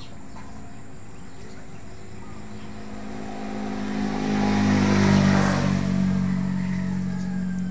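A motor vehicle passing by: its engine drone grows louder over a few seconds, peaks about five seconds in, then fades but is still heard at the end.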